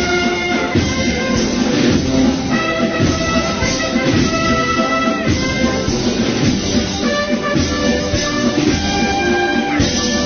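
Brass band playing a processional march, with held brass chords over steady drumming.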